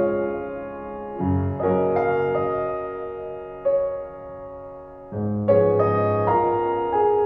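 Background music: slow piano chords, each struck and left to ring and fade before the next.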